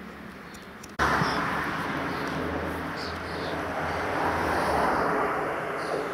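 Jet airliner flying overhead, a steady rushing roar that starts abruptly about a second in and swells a little a few seconds later, with a few faint bird chirps.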